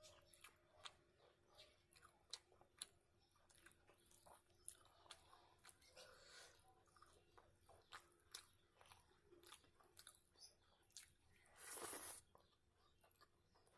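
Faint close-up chewing and biting, with many small wet mouth clicks and smacks and a few crunches. Near the end there is one louder noisy sound, about half a second long.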